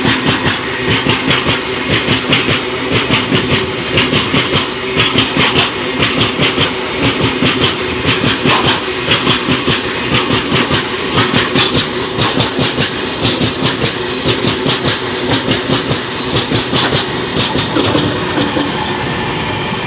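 Freight train wagons rolling past at close range. Their steel wheels clack over the rail joints in quick clusters of beats as each bogie crosses, over a continuous rumble and rattle that eases slightly near the end.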